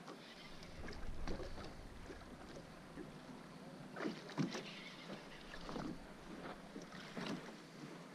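Small waves slapping irregularly against the side of a small boat, with wind on the microphone. The sharpest slaps come about four seconds in and again near the end.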